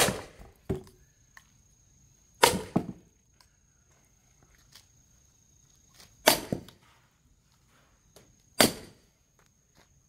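Sledgehammer blows on the back of a splitting maul wedged in a knotty log: four heavy strikes a few seconds apart, some with a quick second knock, each ringing briefly. The knot keeps the log from splitting.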